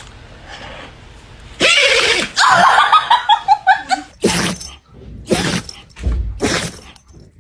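A dog sneezing in a strange way. A long, noisy rush of air about a second and a half in runs straight into a fast string of short, pitched squeaks, and then three short sneezes follow about a second apart.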